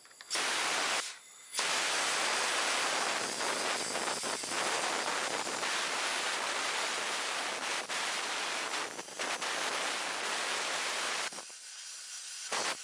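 Compressed air blowing through a small-engine carburetor to clear out dissolved gunk and carburetor cleaner: a short blast, then a long hissing blast of about ten seconds, then another short burst near the end.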